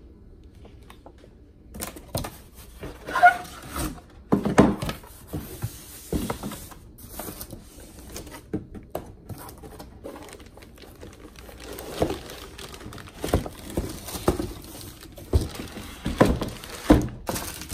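A cardboard box being opened and its contents unpacked by hand: irregular rustling and crinkling of plastic wrap and cardboard, with sharp knocks and scrapes as the flaps are opened and a bagged heat press is lifted out. It starts about two seconds in.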